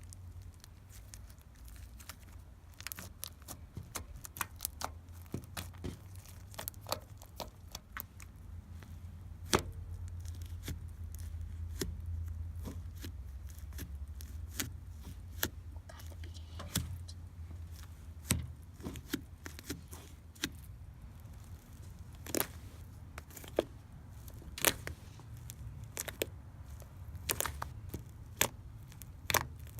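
Slime being squeezed and worked by hand, giving irregular sharp clicks and pops over a low steady hum.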